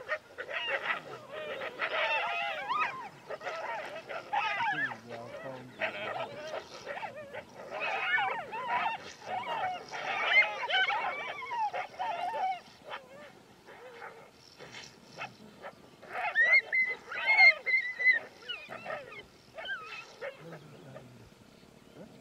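A pack of Ethiopian wolves calling in a dense, overlapping chorus of high, wavering calls as it mobs and chases off a pair of honey badgers. The calls thin out about two-thirds of the way through, then come back as a short burst of shriller, higher calls.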